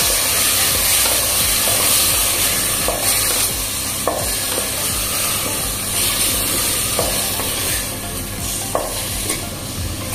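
Chicken pieces sizzling as they fry in oil in a pressure cooker, stirred with a wooden spatula that scrapes through the pieces and knocks lightly against the pot a few times.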